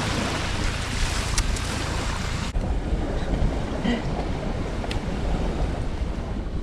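Wind rumbling on the microphone over the steady wash of sea surf, with a few faint clicks. The higher hiss drops off abruptly about two and a half seconds in.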